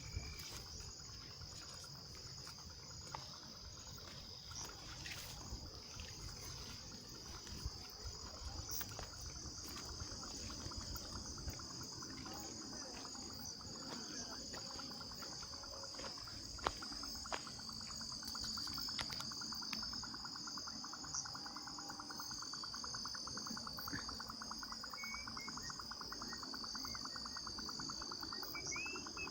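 Evening chorus of crickets and other insects: a steady high chirring throughout, joined about halfway through by a second, lower, fast-pulsing trill. A few short bird chirps come near the end.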